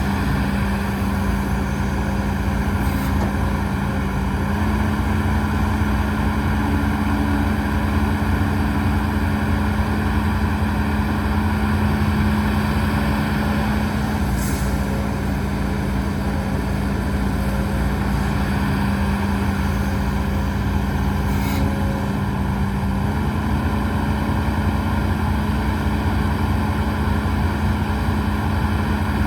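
Hidromek HMK230LC excavator's diesel engine running steadily under work, its speed stepping slightly up and down a few times, with a few faint clicks.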